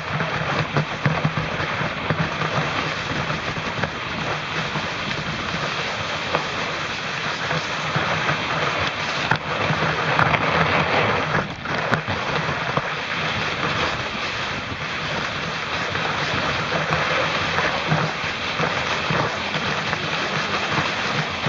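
Steady rushing noise of skis gliding and scraping over snow, mixed with wind buffeting the microphone of a homemade action camera carried by the skier.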